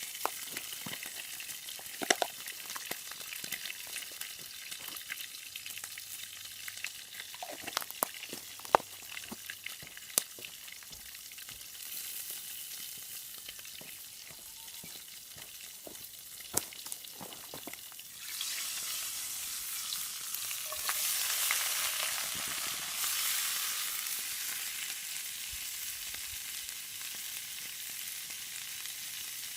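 Yakisoba noodles frying in a hot skillet: a steady high sizzle with scattered sharp clicks. About two-thirds of the way in, the sizzle suddenly grows louder and fuller.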